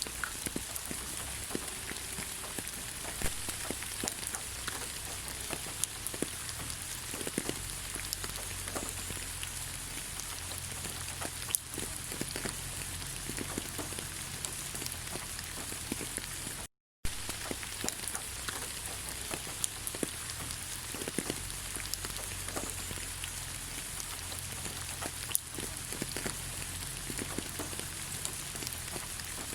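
Steady rain falling on leaves: an even hiss with scattered single drops ticking on the foliage. About halfway through, the sound cuts out completely for a moment.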